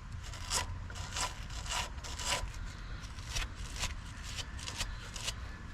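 Small toothbrush-style wire brush scrubbing rust and pad debris off a brake caliper bracket, in short scratchy strokes about every half second.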